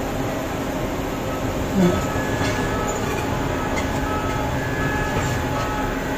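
Heavy mining machinery working, a hydraulic mining shovel loading a haul truck: a steady, loud engine drone with a short, heavy thud about two seconds in. A faint high whine comes and goes in the second half.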